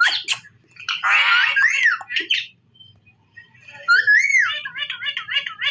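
Indian ringneck parakeet calling: a harsh squawk about a second in, then after a short pause a rising-and-falling whistle followed by a run of quick chattering chirps.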